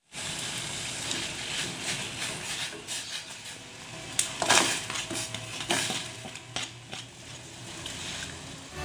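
Water bubbling at a boil in an aluminium pot while ground chili and garlic are scraped in from a bowl with a spoon, with sharp spoon clinks against bowl and pot about four to five seconds in and a few more around six to seven seconds. Near the end a brown liquid is poured into the pot.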